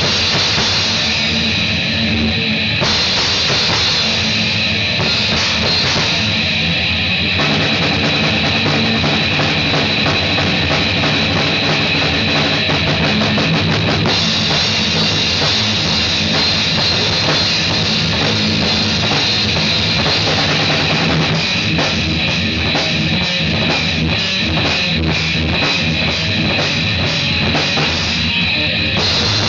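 Loud rock music driven by a pounding drum kit with bass drum and cymbals, heavy and metal-like.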